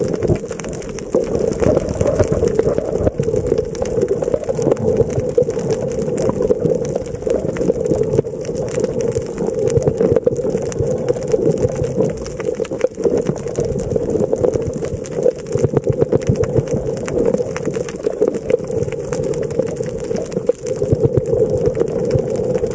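Underwater ambience picked up by a camera in its housing on a reef: a steady low hum with constant fine crackling and ticking.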